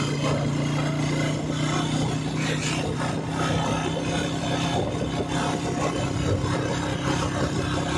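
Engine of the vehicle carrying the camera running at a steady cruise, a constant low hum with road and wind noise over it.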